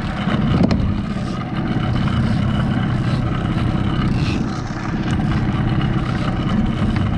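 Outboard motor of a small fishing boat running steadily, under a constant rush of wind and water. A brief knock comes just under a second in.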